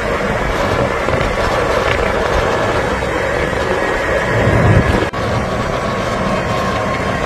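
A vehicle's engine running with a steady rushing noise, swelling about four and a half seconds in, then an abrupt break about five seconds in.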